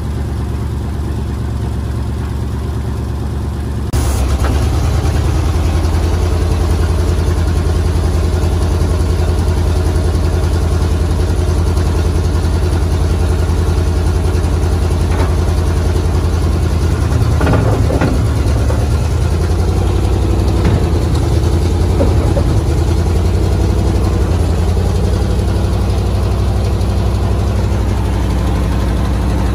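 1962 Dodge D500 truck engine running steadily at idle, getting louder about four seconds in.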